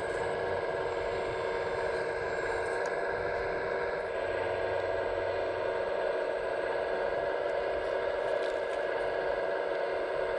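Electric hydraulic pump of an RC Liebherr A918 wheeled excavator whining steadily under load as the arm and bucket work, its tone shifting slightly about four seconds in. Light scraping of ballast stones in the bucket.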